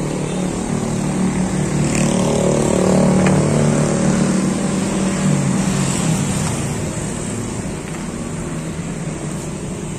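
A motor vehicle's engine passing by, its note growing louder, then dropping slightly in pitch and fading away.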